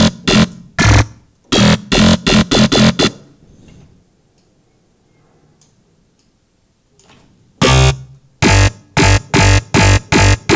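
Growly, distorted synth bass patch in Native Instruments Massive, two unison voices through a sine shaper, frequency shifter and tube distortion, played as quick short stabbing notes. The notes stop for about four seconds partway through, leaving only faint clicks, then come back with one longer note followed by more rapid stabs.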